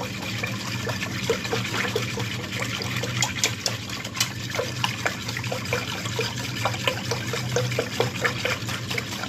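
Liquid ube ice candy mixture being stirred briskly in a stainless steel pot: steady sloshing and swirling, with frequent light clicks of the utensil against the pot. A steady low hum runs underneath.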